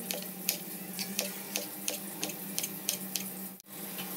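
Kitchen knife chopping long beans on a plastic cutting board: quick, even chops about three a second over a steady low hum. The chopping stops about three and a half seconds in.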